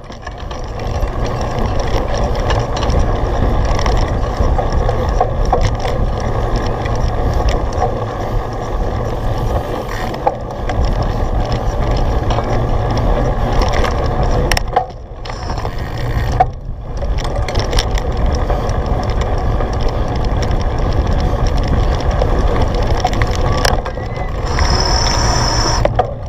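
A cyclocross bike ridden hard over rough ground: a steady rumble of wind and riding noise with frame and chain rattle and scattered clicks, dropping briefly twice, about 15 and 16.5 seconds in.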